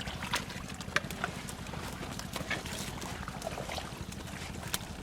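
Scattered small splashes and sharp wet clicks of water over a steady low motor hum, the sharpest click about a second in.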